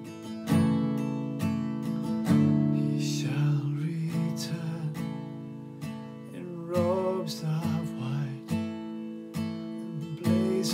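Acoustic guitar strummed in a steady rhythm, about two strokes a second, with a man singing a worship-song line in places over it.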